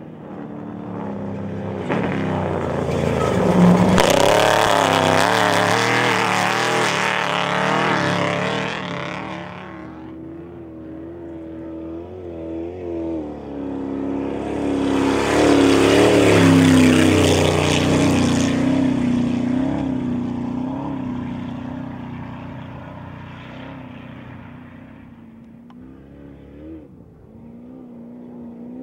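Off-road race trucks passing close by twice, each engine growing loud, peaking and fading away. Its pitch wavers up and down as the throttle comes on and off.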